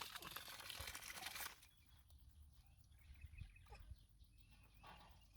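A steady hiss cuts off about a second and a half in, leaving a quiet rural background with a few faint bird chirps.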